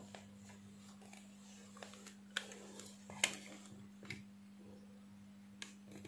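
A few faint, irregular clicks and taps as a utility knife and a coaxial cable are handled on a work mat, over a steady low hum.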